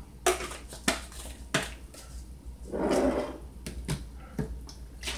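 A glass spice jar and bottles being handled and set down on a kitchen counter: a handful of sharp knocks and clicks at uneven intervals, with a short muffled rustle about halfway.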